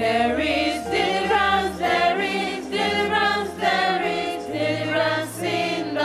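A choir singing a worship song, several voices holding long notes over a steady low accompaniment.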